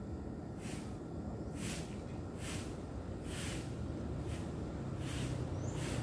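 Broom sweeping a path: soft, regular swishes about once a second, over a low rumble.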